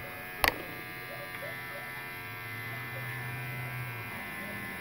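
Cordless rechargeable pet clipper running with a steady electric buzz, with one sharp click about half a second in.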